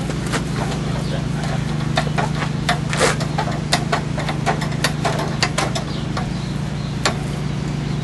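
A steady low hum with a run of irregular sharp clicks and clacks through the middle: a paint roller being worked in a metal paint tray.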